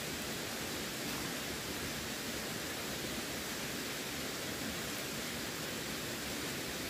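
Running water rushing steadily, an even hiss with no breaks or changes.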